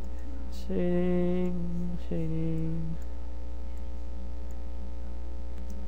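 Steady low electrical mains hum on the recording. About a second in, a man's voice holds two drawn-out, flat notes, one after the other.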